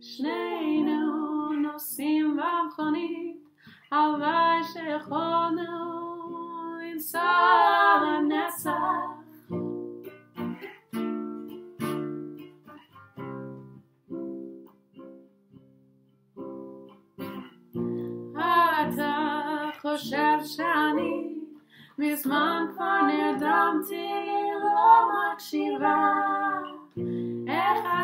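Acoustic guitar strummed as accompaniment to female vocals singing a Hebrew song. The singing pauses for several seconds in the middle while the guitar carries on alone, then comes back.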